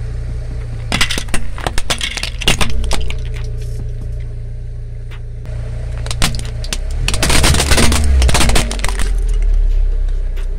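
Car tyre crushing hard plastic toys: a cluster of sharp cracks and snaps from about a second in as toy building blocks break, then a longer run of crunching and cracking later on as a plastic toy dog is crushed. Under it the car's engine runs with a steady low hum.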